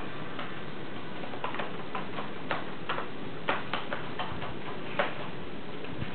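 A tabby cat chewing and clawing at a cardboard egg carton: irregular small crackles and scratches, the loudest about five seconds in, over a steady hiss.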